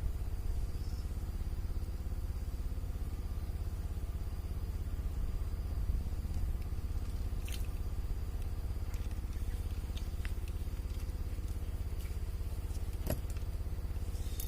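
A small engine running steadily at an even speed, with a few sharp clicks: one about halfway through and one near the end.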